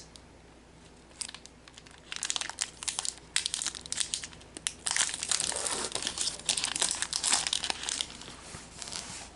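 Foil wrapper of a mint Aero chocolate bar being torn open and crinkled, a run of crackles that gets busier about five seconds in.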